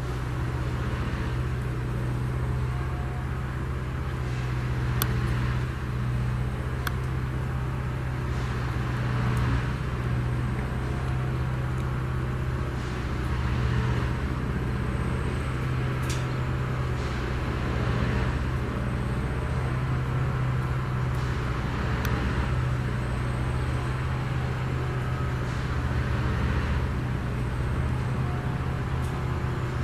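Diesel engine of a yellow railway track tamping machine running steadily at a constant speed, a low even hum, with a few sharp metallic ticks scattered through it.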